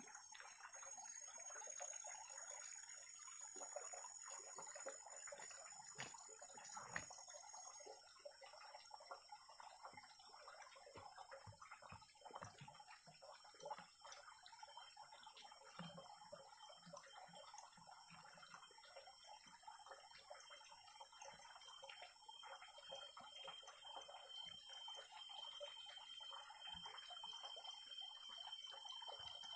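Faint forest ambience: insects holding several steady high-pitched tones over a soft crackling hiss. A few light knocks come around six to seven seconds in, while broth and chicken are tipped out of a green bamboo cooking tube into a bark bowl.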